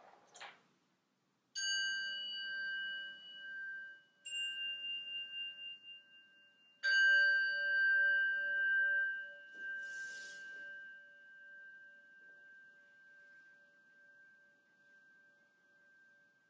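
A small metal meditation bell struck three times a few seconds apart. Each strike rings with a clear high tone over a pulsing lower hum, and the last one fades slowly over several seconds.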